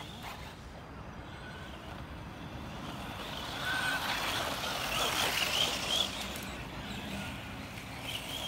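Tamiya electric radio-controlled buggy passing close by on a dirt track: motor whine and tyres on loose dirt, loudest about four to six seconds in.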